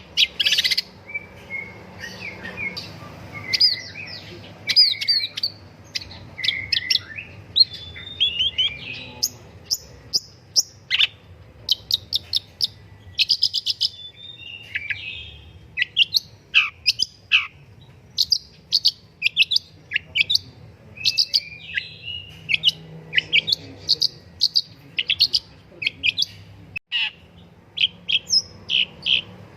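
Long-tailed shrike singing a fast, varied song of sharp chattering notes and short whistled slurs, broken by runs of quick repeated notes.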